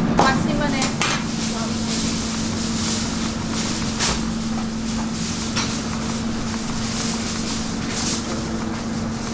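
Kitchen background: a steady low hum under an even hiss, with a few light knocks and clatters spread through.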